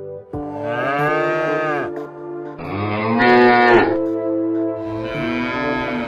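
Cattle mooing: three long moos in a row, each rising and then falling in pitch. Steady background music runs underneath.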